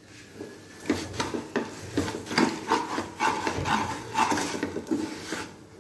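Wooden spatula stirring and scraping grated coconut and sugar around a pan, a quick run of rasping strokes, about three a second, starting about a second in.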